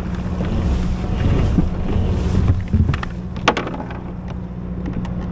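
Wind rumbling on the microphone while a kayak moves on the water, with a few sharp knocks a little past halfway.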